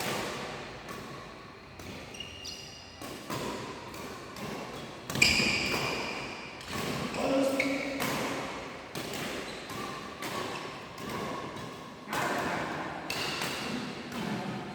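Badminton rally in an indoor hall: repeated sharp racket-on-shuttlecock hits and thuds of players' footsteps at irregular intervals, echoing, with one loud smack about five seconds in.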